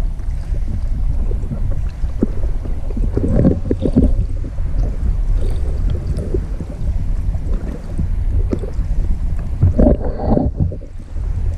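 Steady low rumble of wind buffeting the microphone, with scattered knocks and bumps and a louder burst about ten seconds in.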